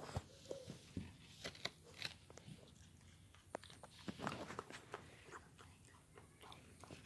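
A dog chewing fries, with faint, irregular wet crunches and mouth clicks.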